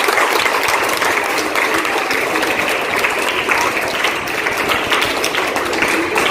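Audience applauding: many hands clapping in a steady, dense patter that holds at an even level throughout.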